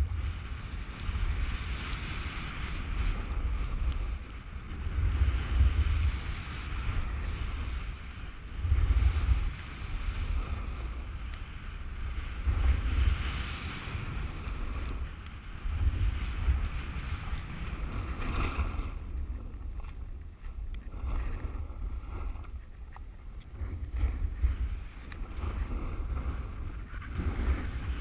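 Wind buffeting a GoPro's microphone during a downhill run on snow: a gusting low rumble that swells and eases every couple of seconds, over a steady hiss of the ride across the snow.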